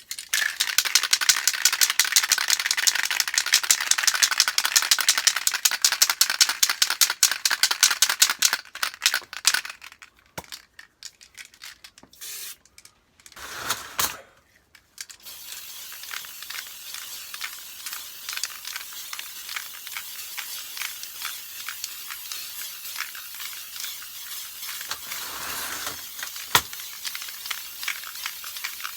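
An aerosol can of heat-resistant spray paint being shaken hard, its mixing ball rattling rapidly for about eight seconds. After a few short bursts, a quieter steady hiss follows, typical of the can spraying paint.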